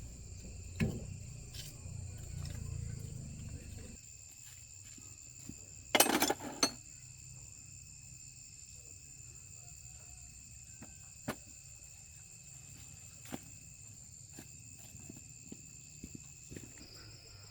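Insects chirring steadily, with a low rumble that stops about four seconds in and scattered sharp knocks and clicks, the loudest a short cluster of knocks about six seconds in.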